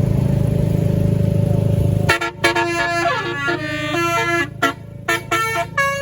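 A bus's Basuri telolet musical horn playing a quick tune of stepped notes, starting about two seconds in. Before it, a deep engine rumble runs steadily and cuts off sharply just as the tune begins.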